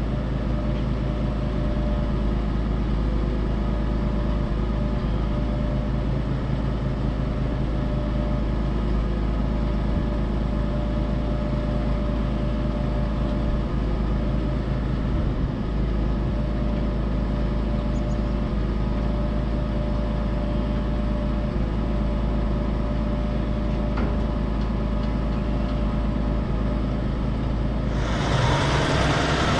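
Heavy diesel truck engine running steadily at constant speed. Near the end it gives way abruptly to a louder hiss.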